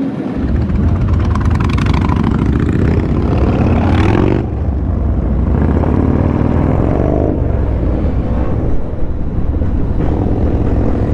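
Yamaha Bolt motorcycle's air-cooled V-twin engine running under load, a heavy rumble that comes in sharply just after the start, its pitch rising as it accelerates.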